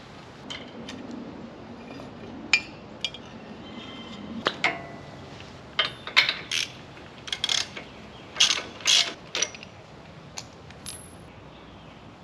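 Irregular metallic clicks and clinks of hand tools on a riding mower engine's valve gear as the valves are being readjusted, busiest in the second half.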